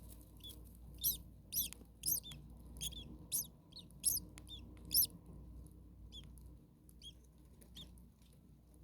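Starlings calling: a quick run of short, high, arching chirps, about two a second for the first five seconds, then a few fainter ones spaced out.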